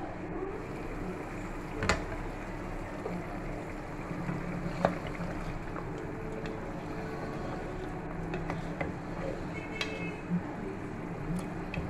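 Mutton curry boiling hard in a pot, a steady bubbling with a low hum underneath, and a few sharp knocks of the lid and wooden spatula against the pot as it is stirred, the loudest about two and five seconds in.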